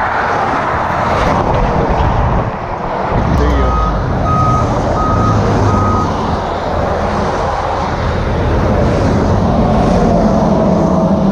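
Truck engine running, with a backup alarm beeping four times, evenly spaced, about four seconds in.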